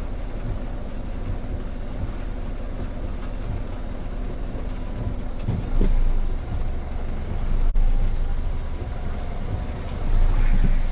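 Car on the road: a steady low rumble of engine and road noise, swelling louder about six seconds in and again near the end.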